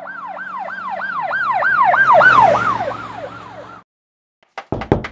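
Emergency siren sound effect, a fast wail rising and falling about three times a second over a low hum, passing by: it grows louder, then drops in pitch and fades, and cuts off about four seconds in. Near the end a few sharp knocks begin.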